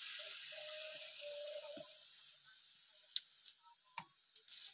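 Hot oil in a wok sizzling as peanut-cracker batter is ladled in along the sides; the sizzle fades after about two seconds. A few sharp clicks and one knock follow near the end.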